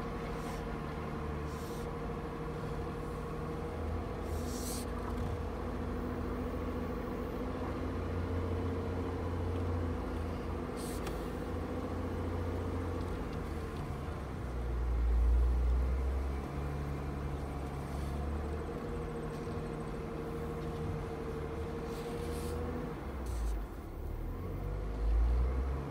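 4x4 engine running at crawling speed off-road, heard from inside the cab, with a steady whine over the low engine sound. The low rumble swells louder about fifteen seconds in and again near the end, as the vehicle works over the trail.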